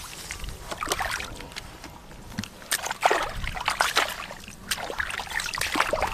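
Shallow water splashing and sloshing in short, irregular splashes as someone wades and gropes through it by hand for fish, with louder splashes about three and four seconds in.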